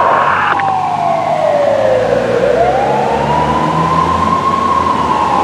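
Fire truck siren in a slow wail: it falls in pitch, rises and holds high, then starts falling again near the end. A faster yelping siren tone cuts off about half a second in.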